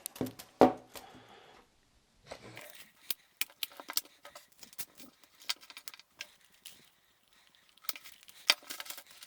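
Tape measures being handled: scattered sharp clicks and taps of the cases and steel blades, with no steady sound.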